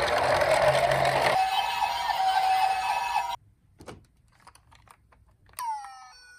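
Electronic siren of a toy emergency-vehicle minicar, settling into a steady pitch with quick repeated sweeps and cutting off abruptly about halfway through. A few light clicks follow, then near the end a new electronic tone that slides down and steps lower in pitch.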